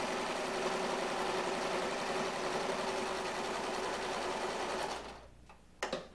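Brother electric sewing machine running steadily, stitching a seam through canvas, then slowing and stopping about five seconds in. A couple of short clicks follow near the end.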